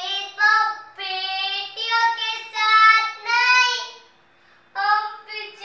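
A young boy singing solo with no accompaniment, holding long notes, with a short pause about four seconds in.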